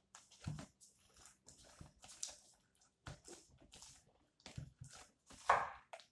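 Sticky homemade PVA-glue slime being pulled and scraped off the sides of a plastic bowl by hand: irregular squelching and sticky crackling, with one louder sound near the end.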